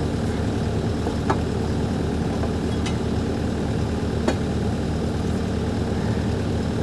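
Engine of a rubber-tracked machine idling steadily, with three sharp knocks spread through the first two thirds.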